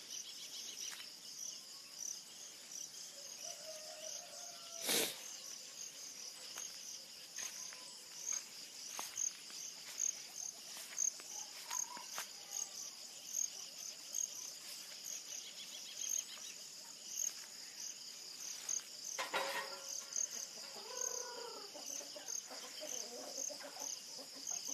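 Insects chirping steadily outdoors in a high, evenly pulsing trill. There is one sharp click about five seconds in, and a few short clucking calls from chickens near the end.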